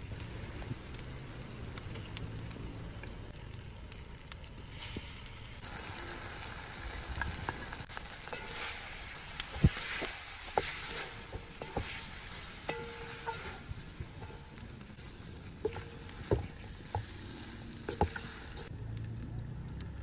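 Spaghetti and vegetables frying and sizzling in a large metal pot as they are stirred, with the utensil now and then knocking sharply against the pot. The sizzling starts about five seconds in and stops shortly before the end.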